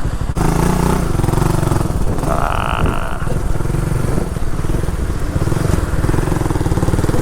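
Motorcycle engine running as the bike is ridden, heard with heavy wind noise on the microphone. There is a brief higher sound about two and a half seconds in.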